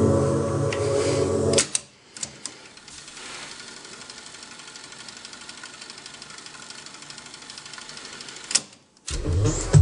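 Music played from a Kenwood KX-1060 cassette deck stops with clicks of its piano-key transport controls, then the deck's mechanism winds the tape at speed with a faint steady whirr for about six seconds. Another click near the end, and music plays again.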